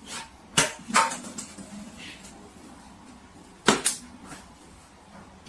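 Three sharp knocks, about half a second in, about a second in, and a little before four seconds in.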